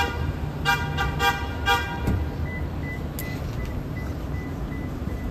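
City street traffic rumbling, with a car horn honked four short times in the first two seconds. A faint, rapid high beeping follows.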